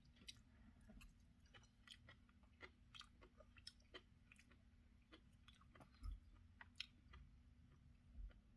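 Faint close-miked chewing: irregular wet mouth clicks and soft smacks of someone eating, over a low steady hum.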